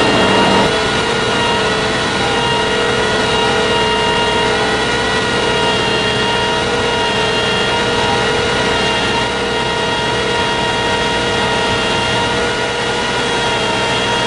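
Swabbing unit's engine running steadily with a steady high-pitched whine over it.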